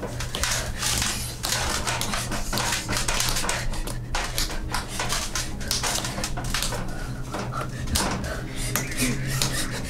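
A rapid, irregular run of sharp clicks and knocks over a low, steady hum.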